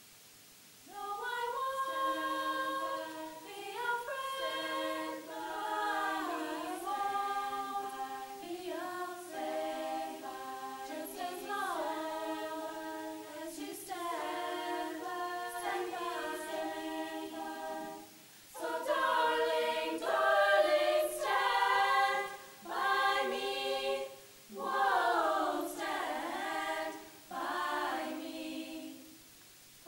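All-female a cappella group singing in close harmony, several voices and no instruments. The singing starts about a second in, breaks off briefly a little past halfway, and comes back louder.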